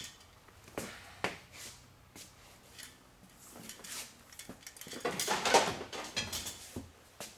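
Tools and parts being handled: scattered light knocks and clatter, with a longer, louder burst of clatter about five seconds in.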